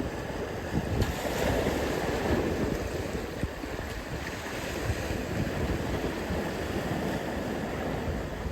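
Ocean surf washing onto a beach, a steady wash that swells louder a second or two in as a wave breaks, with wind buffeting the microphone.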